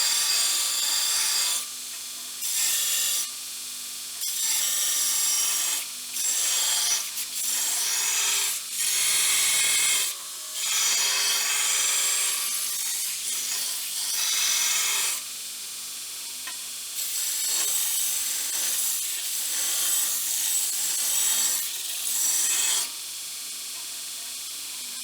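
Steel being abraded in repeated strokes of one to three seconds each, a harsh scraping hiss that starts and stops about a dozen times, over a steady low motor hum.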